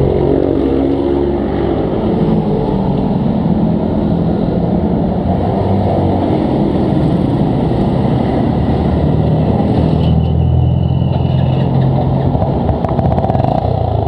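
Motorcycle engines running in busy street traffic, a steady loud mix of engine noise. A brief high-pitched tone sounds about ten seconds in.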